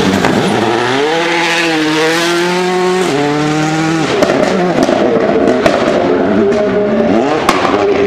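Rally car engines at full throttle. The first car accelerates hard with its revs held high, then drops at a gear change about three seconds in. After about four seconds a second car passes, its revs rising and falling, with several sharp cracks.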